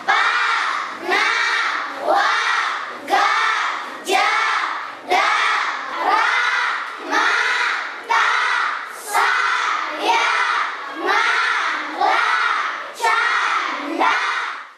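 A class of schoolchildren chanting the letters of the Karo script aloud in unison, one drawn-out syllable about every second.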